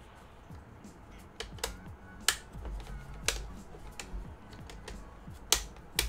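Sharp clicks and taps of hard laptop parts being handled and pressed into place during reassembly. There are about five distinct clicks spread through the stretch, with low handling bumps between them.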